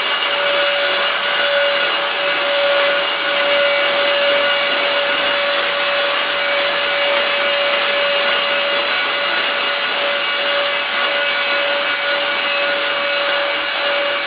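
Silvercrest SHAZ 22.2 F7 cordless cyclone vacuum cleaner running steadily on a thick carpet: a constant motor whine over a loud rush of air.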